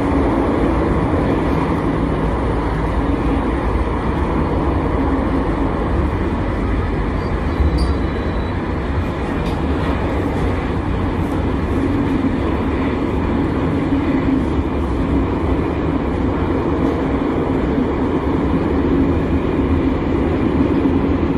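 Metro train running between stations, heard from inside the carriage: a steady running noise of wheels and traction motors.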